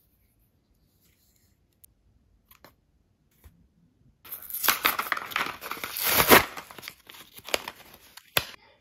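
A plastic blister pack of clear adhesive hooks being torn and peeled open from its card backing, crinkling and tearing for about four seconds after a quiet start with a few faint clicks.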